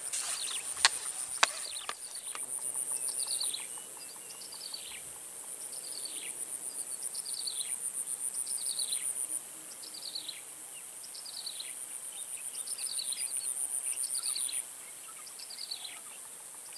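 Swamp birdsong and insects: a bird repeats a short call that sweeps down in pitch about once a second, over a high, shrill insect trill that swells for a few seconds at a time and then drops back. A couple of sharp clicks near the start.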